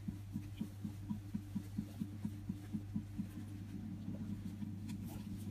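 Whey dripping steadily from a cheesecloth of fresh ricotta curds into the sink: faint, soft low drips about four or five a second, over a low steady hum.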